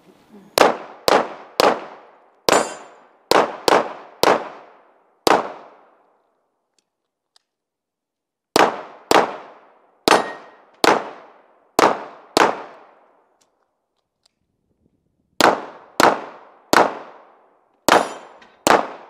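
Pistol shots fired in quick strings on a practical-shooting course: about two dozen sharp reports in three runs of six to eight shots, each run spaced half a second to a second apart, with pauses of about three seconds between runs.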